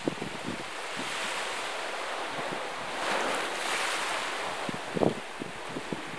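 Small waves washing against a rocky shore, one swelling and breaking over the rocks about three seconds in, with short splashes as the water slaps the stones.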